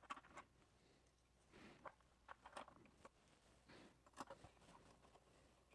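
Near silence with faint, scattered small clicks and light scrapes of hands handling small screws and an AstroPixels circuit board against a plastic panel as it is fitted.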